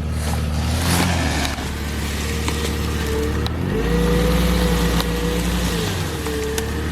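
Jeep Cherokee XJ engine running on a dirt trail, revving up a little past halfway, holding there for about two seconds, then easing back. A few short sharp knocks sound through it.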